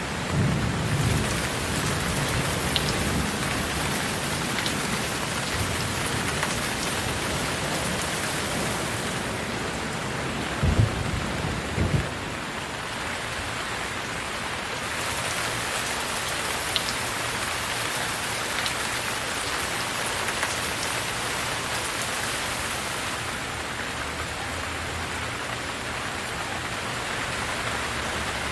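Steady rain falling, a dense even hiss of drops, with low thunder rumbles near the start and twice, loudest, about eleven to twelve seconds in.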